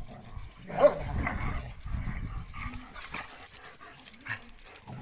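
Dogs tussling in play, with one short loud yelp about a second in and a few smaller yips and barks.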